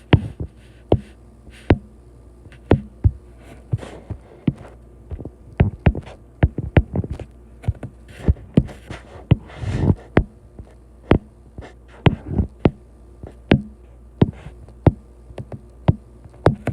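Handwriting close to the microphone: a pen tapping and scratching on the writing surface. There are many sharp, irregular clicks, with a longer scraping stroke about ten seconds in.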